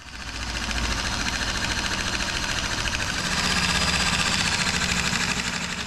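Corded Milwaukee electric metal shear running and cutting through sheet metal: a steady motor whir with a fast, even chatter from the reciprocating blade as it trims a strip off along a marked line. It swells slightly partway through and eases off near the end.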